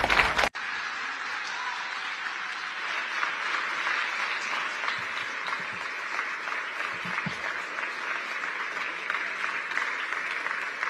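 An audience applauding steadily, coming in abruptly about half a second in.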